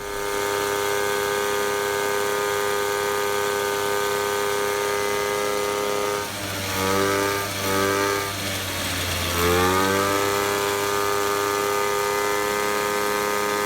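Motobecane moped's single-cylinder two-stroke engine running steadily on one of its first runs after restoration. In the middle its pitch drops and climbs back twice as the engine speed changes.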